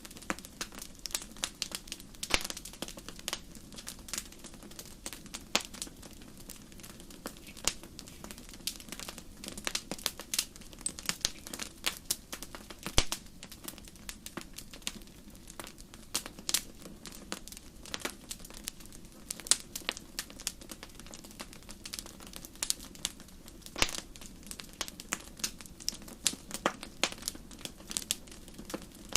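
Campfire crackling: irregular sharp pops and snaps of burning wood, several a second, over a low steady hiss, with one louder pop about halfway through.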